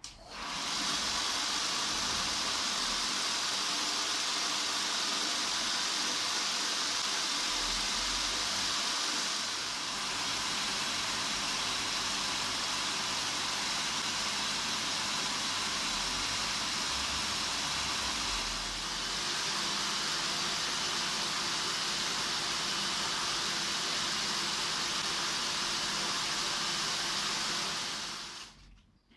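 Homemade belt grinder running: an abrasive belt and motor making a steady, loud hiss that starts suddenly, dips slightly twice, and dies away about a second before the end.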